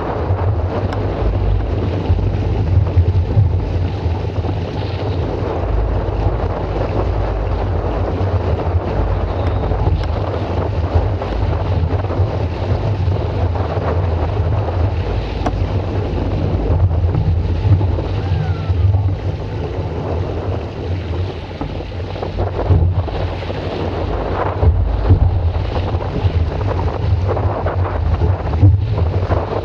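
Heavy wind buffeting the microphone, a steady low rumble over the wash of water, out on the water while sailing.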